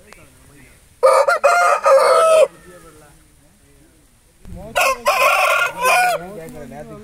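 Rooster crowing twice, each crow loud and drawn out for about a second and a half, a few seconds apart.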